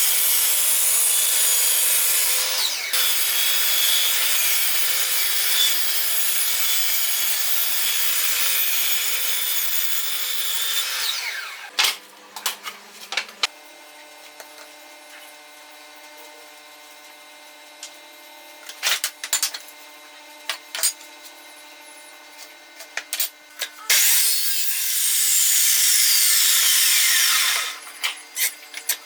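Power saw cutting wood for about eleven seconds, then winding down with a falling whine. A stretch of scattered clicks and knocks follows over a faint steady hum. Near the end comes a second, shorter cut that spins up and winds down.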